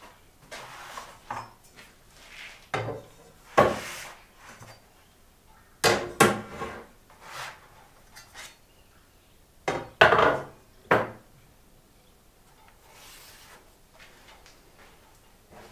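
Metal rulers and an L-shaped metal square being picked up off a sheet of board and put down, with irregular sharp metallic clinks and scrapes in three clusters, plus card and paper being shifted.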